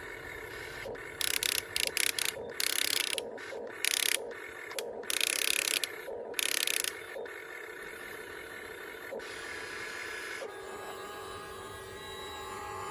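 Toy remote control excavator's small electric motors and plastic gearboxes whining steadily, with about ten short, loud bursts of gear ratcheting during the first half.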